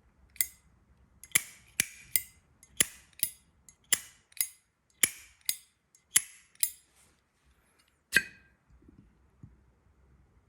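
Lid of a chrome-plated brass Zippo slim lighter being flicked open and snapped shut several times. The sharp metallic clicks with a short bright ring come mostly in pairs, the last a little over 8 seconds in.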